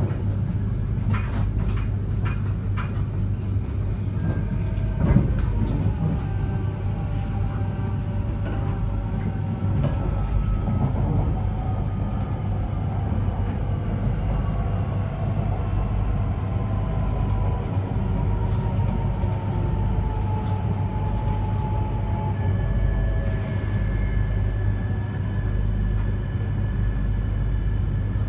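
In-car running sound of an E3-2000 series Shinkansen: a steady low rumble of the train rolling on the rails, overlaid by the whine of its Hitachi IGBT VVVF inverter and traction motors. The whine is several thin tones that glide slowly down in pitch, with a steady higher tone coming in about 22 seconds in. A few sharp clicks sound in the first few seconds.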